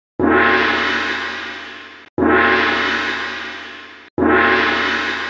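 Gong sound effect struck three times about two seconds apart. Each stroke rings and fades, and the first two are cut short by the next.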